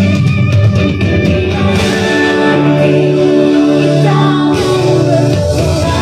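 Band music with singing, with long held notes about halfway through.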